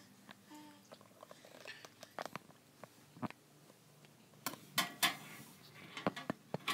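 Scattered rustles and sharp clicks of a handheld phone being moved and handled, with a cluster of louder knocks about four and a half to five seconds in.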